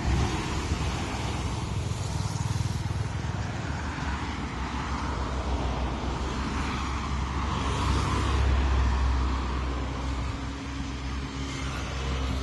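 Steady road traffic with vehicles passing, a low rumble that swells twice and is loudest about eight seconds in.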